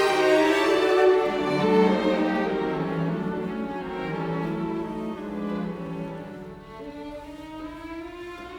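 Background music of bowed strings, violin and cello, playing slow held notes that grow softer.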